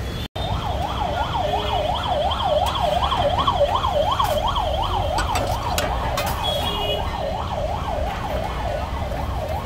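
A warbling siren, its pitch sweeping up and down about three times a second, over a low steady rumble.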